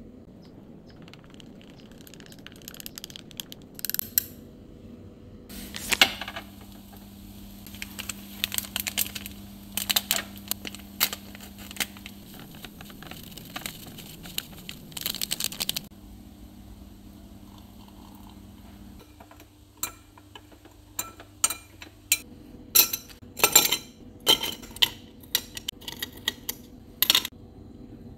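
Glass and dish clinks and small clatters of kitchen handling, with a stretch of rustling and scattered clicks partway through; near the end, a quick run of sharp clinks as ice cubes drop into a glass.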